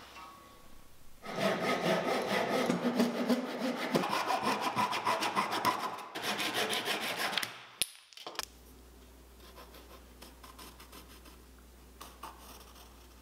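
Flush-cut hand saw cutting wood with quick back-and-forth strokes for several seconds, then stopping abruptly. Only faint background with a few light taps follows.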